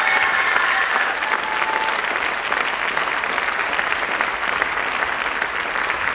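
Audience applauding, a dense, steady clapping. A few high drawn-out tones sound over it in the first couple of seconds and fade out.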